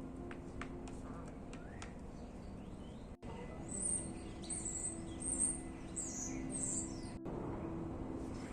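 Birds chirping, a run of short high chirps in the middle, over a steady low hum.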